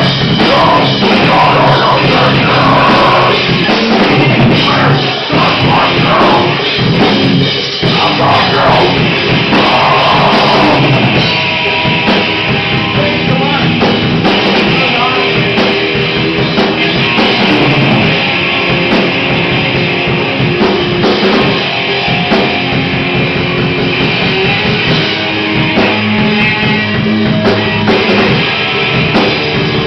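A rock band playing live, loud and continuous, with a full drum kit driving a heavy rock song.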